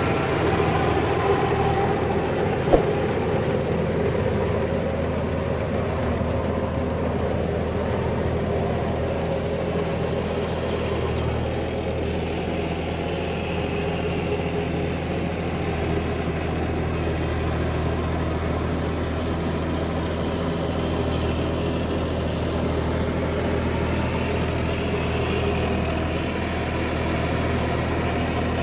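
John Deere 5305 tractor's three-cylinder diesel engine running steadily under load as it pulls a working rotavator. There is one sharp knock about three seconds in.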